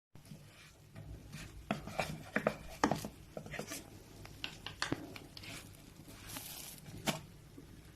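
Kitchenware being handled: irregular light clicks and knocks with some rubbing, a few sharper knocks around the middle.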